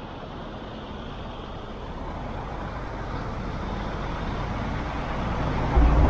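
Road noise from a moving car: a steady rush of tyre and air noise that grows gradually louder, with heavy low wind buffets on the microphone near the end.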